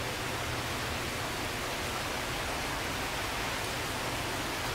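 Steady rain falling all around, an even, unbroken hiss.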